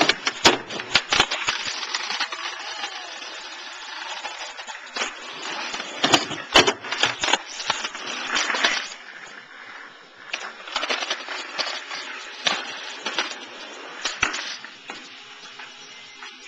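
Skateboard wheels rolling on pavement with repeated sharp clacks of the board hitting the ground and kicking up during tricks. The rolling stops briefly about 9 seconds in and again near the end.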